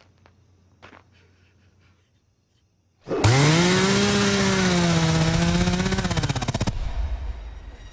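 Chainsaw revving hard, starting abruptly about three seconds in with a quick rise in pitch, holding a wavering high rev for about three and a half seconds, then dropping away to a weaker pulsing run near the end.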